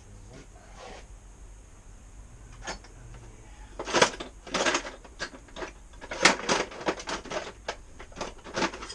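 Metal hand tools clinking and knocking, a quick irregular run of sharp clicks and taps starting about halfway through, as tools are tried against the front wheel axle.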